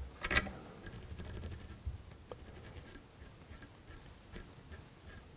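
A sharp click, then a dubbing brush scratching quickly through a fly's dubbing fibres in a short run of fine strokes, followed by a few faint ticks.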